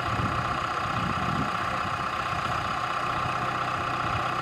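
Kubota M6040SU tractor's diesel engine idling steadily.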